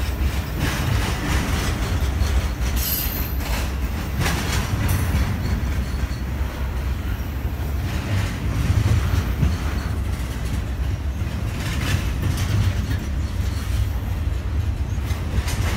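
Double-stack intermodal freight train rolling past: a steady low rumble of the well cars on the rails, with wheels clicking over rail joints and a brief high wheel squeal about three seconds in.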